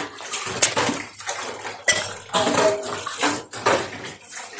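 Steel dishes and utensils clinking and clattering in a stainless steel sink as they are washed under a running tap, with repeated sharp clinks over the hiss of the water.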